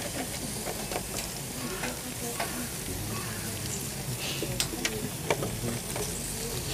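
Honey-glazed salmon sizzling on a hot grill, with scattered sharp crackles and pops.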